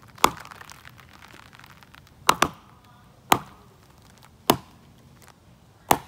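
Alka-Seltzer film canister rockets popping one after another, about six sharp pops with two close together a little past two seconds in. Each pop is the fizzing tablet's gas blowing a canister off its lid.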